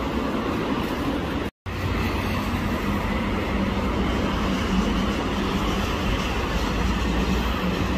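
Steady road traffic noise from cars passing on a multi-lane road: tyre and engine rumble. A brief dropout to silence about one and a half seconds in.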